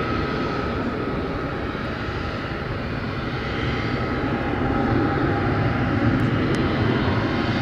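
Gulfstream G600 business jet taxiing, its two rear-mounted Pratt & Whitney Canada PW815GA turbofans running at low taxi power: a steady rumble with a thin, steady whine, growing a little louder in the second half.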